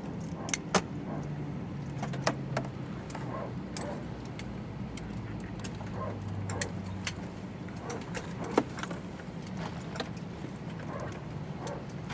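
Airbus A320neo cabin parked at the gate: a steady low hum with scattered sharp clicks and rattles from passengers moving about and handling their things before deplaning.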